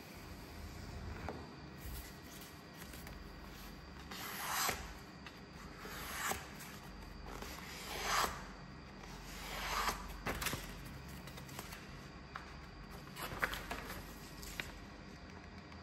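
A sheet of paper being worked by hand: four rubbing, sliding strokes come about every second and a half to two seconds, each building and stopping short. After them come a few light clicks and rustles of paper.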